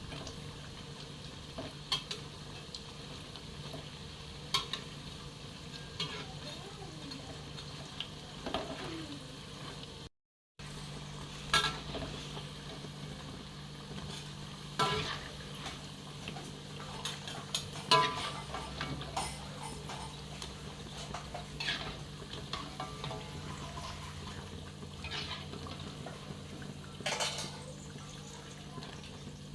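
Food frying in a pan, a soft sizzle under a steady low hum, with scattered sharp clinks and taps of a metal utensil against the pan.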